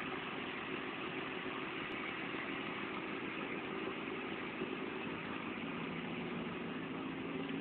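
A motor running at a steady speed, an even hum with a few steady tones.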